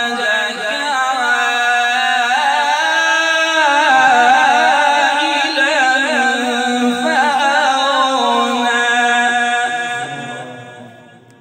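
Male qari reciting the Quran in melodic tajweed, one long held phrase with a wavering, ornamented pitch, fading out about ten seconds in.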